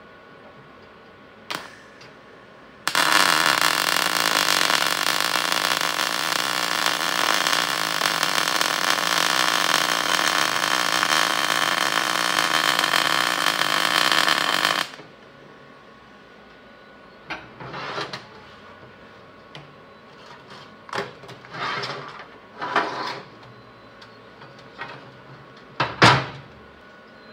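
Wire-feed welder arc running steadily for about twelve seconds as a bead is laid on a steel tube frame, then stopping abruptly. Afterwards comes a series of short metal knocks and clanks as the steel tubing is handled on a steel welding table, the loudest near the end.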